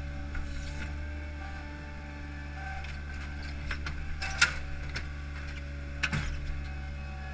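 Hydromak paving machine's engine running steadily, with two sharp knocks, the louder a little past halfway and another near the end, as the Probst clamp comes down onto a stack of concrete H-profile pavers.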